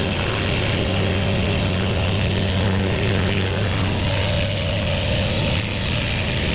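Pressure washer running steadily: an even engine drone with the hiss of the water spray.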